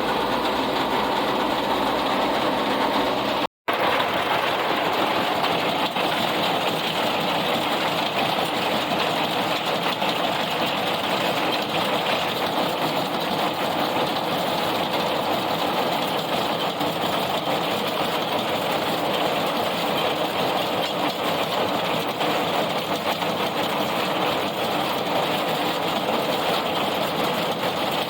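Tractor and round baler running steadily in the field, a continuous mechanical drone of engine and baler drive, with a momentary dropout about three and a half seconds in.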